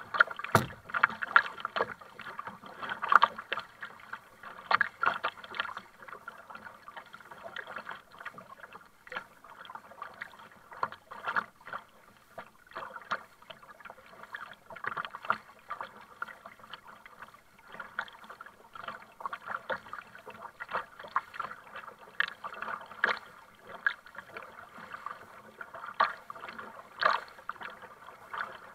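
Double-bladed kayak paddle dipping and splashing on alternate sides in irregular strokes, with water slapping and lapping against the plastic hull of a sit-on-top kayak. A sharp knock about half a second in.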